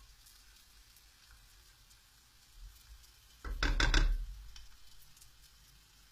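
Faint sizzling of chestnut-flour batter frying in an oiled pan, broken about three and a half seconds in by a short clatter of a utensil knocking against the cookware.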